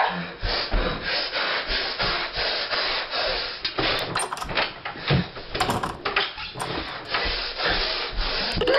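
Sawing sound effect: rhythmic rasping strokes like a hand saw cutting wood, two or three a second.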